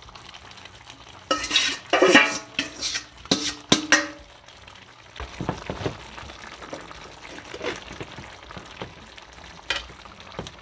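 Metal spoon and steel pot lid clanking and ringing against a frying pan in a burst of loud strikes near the start, then quieter scraping and tapping as coconut-milk sauce is spooned over fish simmering in the pan.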